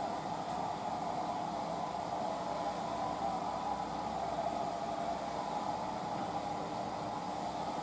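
Steady whooshing noise, strongest in the middle range, with no breaks or rhythm, like a fan or other air noise.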